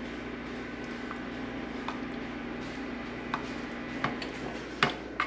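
Cheese sauce being stirred in a saucepan, with scattered light clicks and taps of the stirring utensil against the pan over a steady low hum.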